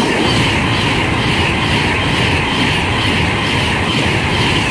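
Class 390 Pendolino electric train going by close at hand, a loud steady rush of wheel, rail and air noise.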